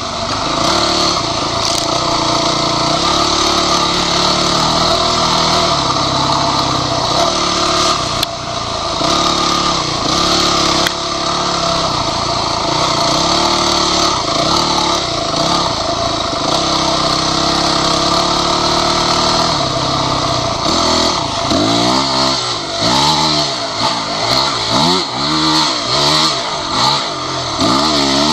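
Dirt bike engine heard from the rider's seat, revving up and dropping back as it accelerates, shifts and slows. In the last several seconds the revs rise and fall quickly, again and again.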